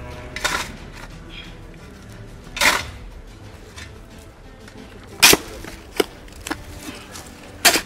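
Shovel digging into loose earth and rubble: two longer scrapes of the blade in the first half, then a few short, sharp strikes in the second half, the loudest near the end.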